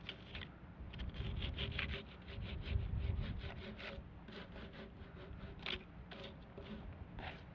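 Hand saw cutting through firewood: quick rasping strokes, about five a second, that slow into fewer, more irregular strokes in the second half.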